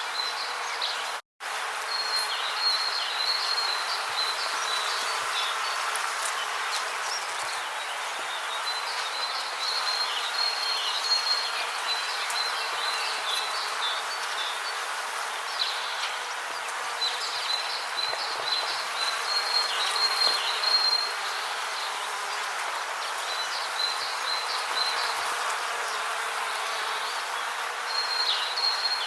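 Rainforest ambience: a steady hiss with a high insect trill chirping in bouts of a few seconds. The sound cuts out completely for a split second about a second in.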